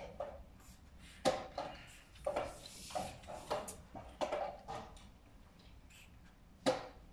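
Irregular short knocks and clicks, like draughts pieces being set down and game clocks being pressed at nearby boards, with a sharper knock about a second in and another near the end.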